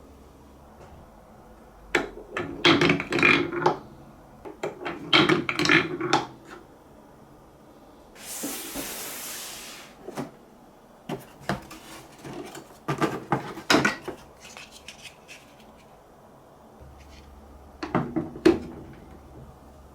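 Marbles clattering down a plastic Trix Track marble run: bursts of rapid clicks and knocks as they bounce over the wave-slope sections, four times, with a smooth rolling hiss lasting about two seconds around eight seconds in.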